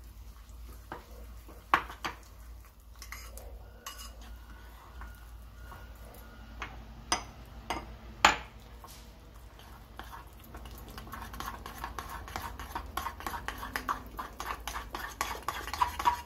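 Metal spoon stirring a semolina and wheat-flour batter in a ceramic bowl, clinking against the bowl's side. A few sharp separate clinks come first, then from about ten seconds in a quick, steady run of stirring scrapes.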